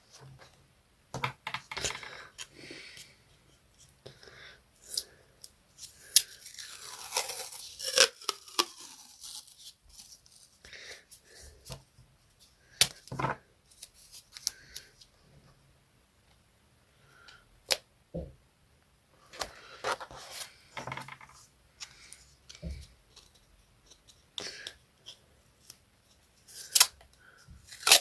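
Hand colouring on paper: irregular scratchy strokes, clicks and paper rustles, in short bursts with brief pauses between.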